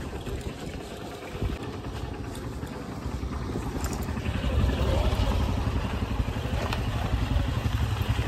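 Motorcycle engine running at low speed, a fast low pulsing beat that grows louder from about four seconds in.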